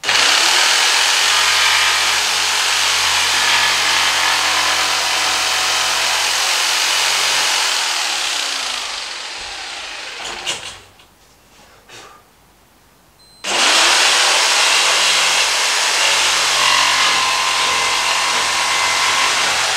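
Corded jigsaw cutting a laminate flooring board in two runs. The saw stops about ten seconds in, there are a few knocks as the board is repositioned, and the saw starts again about three seconds later.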